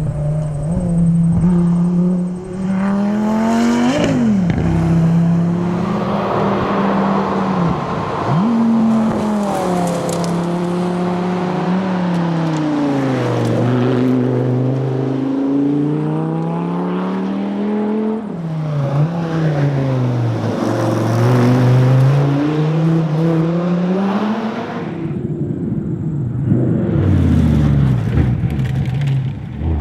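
Dodge Viper ACR's V10 engine driven hard, its pitch climbing under acceleration and dropping with gear changes and braking, over and over.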